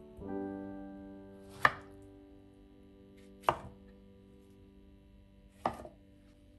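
Chef's knife cutting through peeled tomatoes onto a plastic cutting board: three sharp chops about two seconds apart, over a held chord of soft background music that slowly fades.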